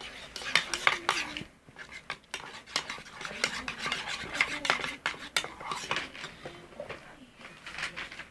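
A utensil stirring and scraping in a bowl, with many quick clicks and scrapes against its side.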